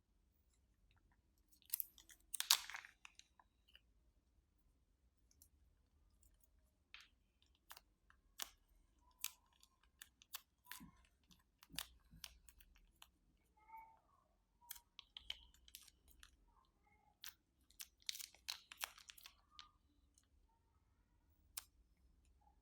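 Slime being squeezed and mixed by hand, making scattered soft sticky clicks and pops, with two short bursts of crinkling plastic bag, one about two seconds in and one near the end.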